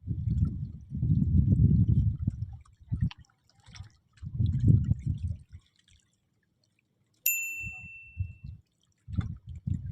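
Several low, muffled bursts of noise, then about seven seconds in a single bright metallic ding that rings out for about a second, followed by a few soft low knocks.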